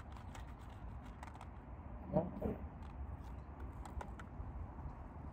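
Wind buffeting the microphone as a steady low rumble, with scattered light clicks and ticks from fishing tackle being handled. A brief murmured voice comes about two seconds in.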